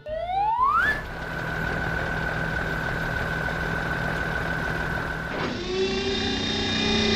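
Cartoon excavator machinery sound effect: a whine that rises over the first second, then holds as a steady high whine over an engine rumble. Music comes in at about five and a half seconds.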